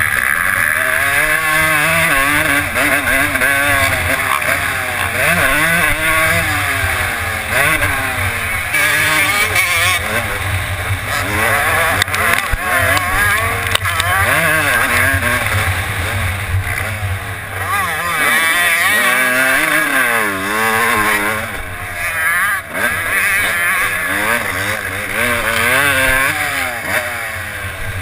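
Suzuki RM250's two-stroke single-cylinder engine revving hard, its pitch climbing and dropping over and over through the gears and turns of a motocross race, heard from the rider's helmet.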